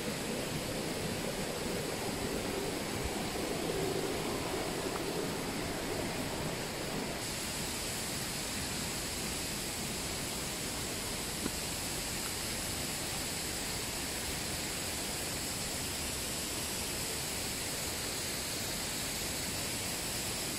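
Mountain stream rushing through a limestone gorge: a steady, even noise of running water, a little brighter in tone from about seven seconds in.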